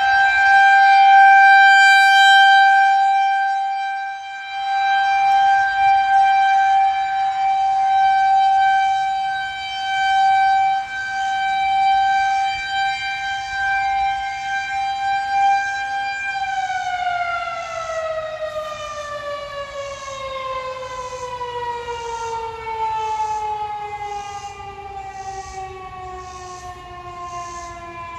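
Federal Signal 2001-130 rotating outdoor warning siren sounding a tornado warning. It holds one steady wail that swells and fades every few seconds as the head turns. About 16 s in it shuts off and winds down, its pitch falling steadily.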